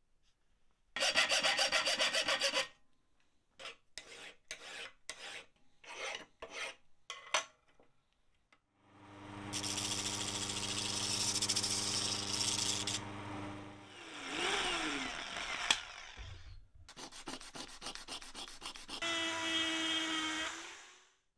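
Brass being ground and shaped with power tools. A short burst of grinding comes first, then a string of short rasping strokes. Then a bench disc sander runs with its motor hum under the scrape of brass against the sanding disc, and winds down. Near the end a small rotary tool whines as it grinds the brass strip.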